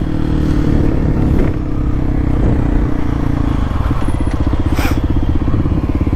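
Kawasaki KLX300SM's single-cylinder four-stroke engine running while riding. About three and a half seconds in, the note changes to an even, rapid pulsing.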